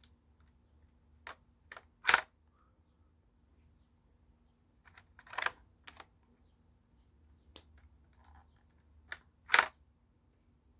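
Plastic Lego bricks of a brick-built rifle clicking and clacking as it is handled and its slide worked: about eight sharp separate clacks, the loudest about two seconds in and near the end.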